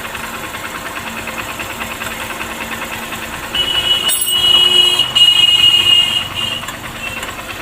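Honda Shine's 125 cc single-cylinder engine idling with a ticking "katkat" noise from the timing chain, which the owner puts down to a tensioner that is not working, the chain itself being new. From about three and a half seconds in, a louder steady high-pitched whine sits over the engine for about three seconds.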